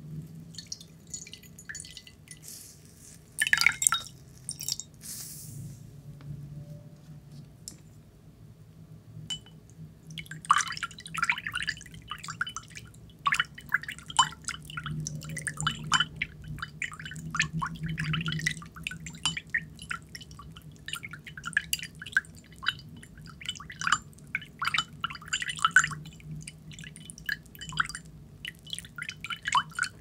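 Water dripping into a ceramic bowl and saucer. A few scattered drops come first, then a brief louder splash about four seconds in, then a long stretch of quick, irregular drops.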